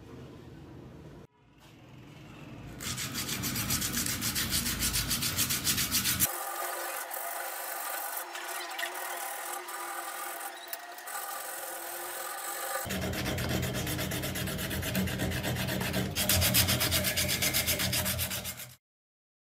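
Wooden hammer handle being hand-sanded with sandpaper: fast back-and-forth rubbing strokes. The rubbing changes in tone twice and stops abruptly near the end.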